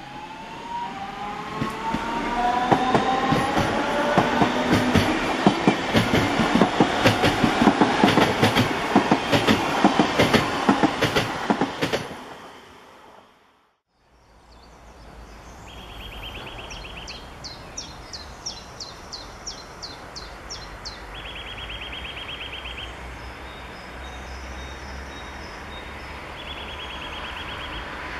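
Red DB class 425 electric multiple unit passing through the station. Its motors whine up in pitch as it comes on, then its wheels clatter rapidly over the rail joints. The sound fades out about halfway through, and after that only a distant train's low rumble is left.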